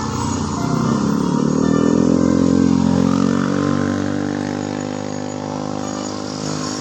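A road vehicle's engine passing close by, its pitch rising and then falling away, loudest about two to three seconds in.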